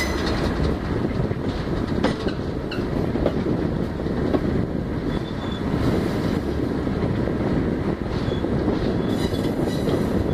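A train running along the track, heard from an open window of the moving coach: a steady rumble of wheels on rail with a few sharp clicks from the rail joints.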